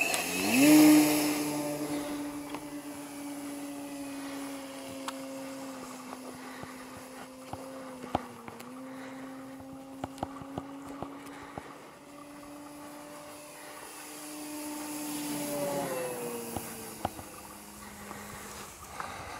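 Radio-controlled model airplane's engine and propeller throttling up sharply for takeoff about half a second in, then running at a steady high pitch in flight. Near the end it grows louder, then drops in pitch as the plane passes.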